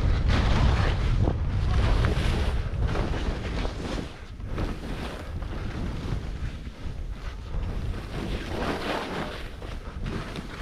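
Wind buffeting the microphone with a rushing noise, heavy low rumble at first that eases off about four seconds in.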